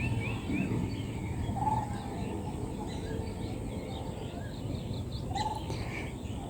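Birds chirping in the background over a steady low ambient rumble, with a few short calls.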